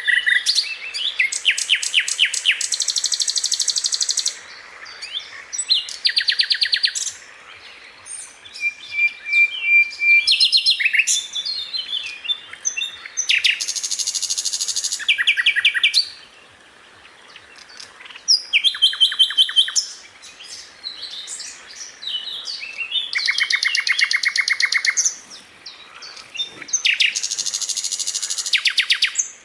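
Sikatan londo flycatcher singing: repeated bouts of very fast, high trilled rolls and sharp notes, each lasting a second or few, with short pauses between.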